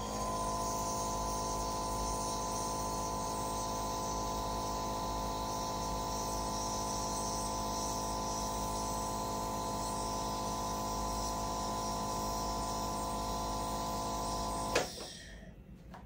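Nebulizer machine running with a steady buzzing hum as it delivers a dose of aerosolized citric acid or saline through the face mask, then switched off with a click about a second before the end.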